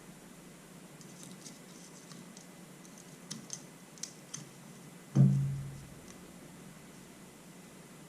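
Motorcycle fork parts and tools handled on a workbench: a few light clicks and clinks, then one knock about five seconds in with a short low ring that dies away.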